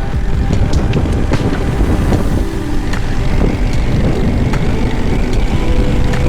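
Harley-Davidson V-twin motorcycle engine running at road speed, with wind buffeting the microphone while riding.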